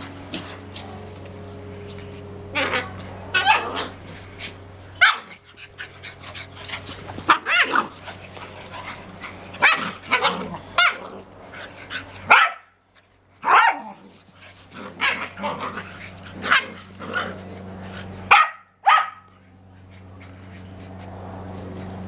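Finnish Lapphunds barking in play: many short, loud barks at irregular intervals, ending a few seconds before the end. A steady low hum runs underneath.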